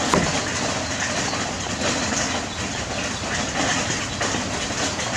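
Cleaver knocking on a wooden chopping block as a vegetable is diced into chunks, against a steady rushing background noise.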